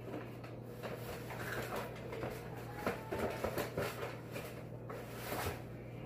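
Quiet indoor room tone: a steady low hum with a few faint, scattered knocks and taps.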